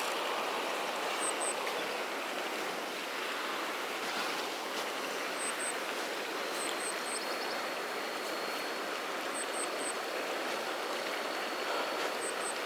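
Steady rushing noise of flowing water, with short paired high chirps every second or two and a thin high tone joining about halfway through.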